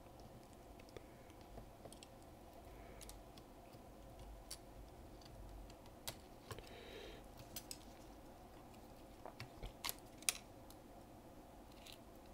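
Scattered small clicks and taps of gloved hands working on an open MacBook Pro logic board, seating flex-cable connectors and handling small parts, with a pair of sharper clicks about ten seconds in. A faint steady hum sits underneath.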